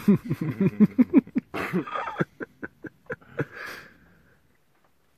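A person laughing in a run of short voiced pulses that thin out, ending in a breathy inhale about four seconds in.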